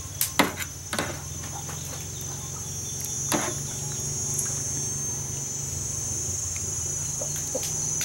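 A steady, high-pitched insect chorus runs throughout. A metal spoon clinks against a ceramic soup bowl a few times: twice about half a second in, once at about a second, and once a little after three seconds.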